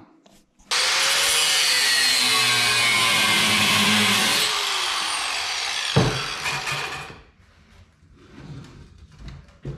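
Power tool cutting through the steel hitch of a grain seeder. It starts under a second in, runs steady, eases slightly partway through, and stops about seven seconds in, with a sharp knock shortly before the end.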